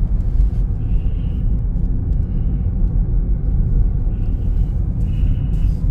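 Steady low road and engine rumble of a moving Volkswagen car, heard from inside the cabin.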